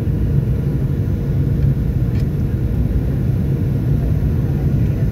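Steady low rumble inside the cabin of a Boeing 737-800 on approach to land: its CFM56-7B turbofan engines and the airflow over the fuselage, with a faint steady hum above it.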